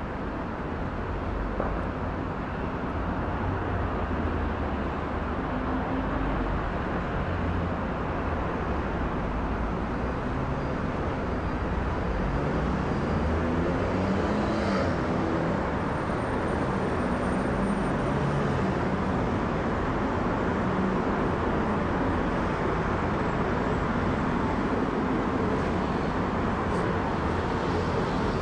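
Jet engine roar of a Boeing 777-300ER's GE90-115B engines as the airliner passes: a steady low rumble that slowly grows louder, with a slow wavering sweep in its tone around the middle.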